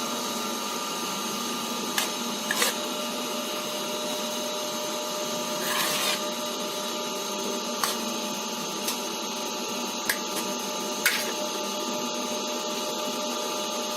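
Grated coconut being mixed with salt in a bowl: a few light clicks and one short scrape about halfway, over a steady background hiss and hum.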